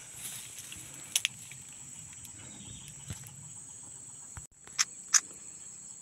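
Steady, high-pitched chirring of insects such as crickets, with a few short, sharp clicks about a second in and twice near the end.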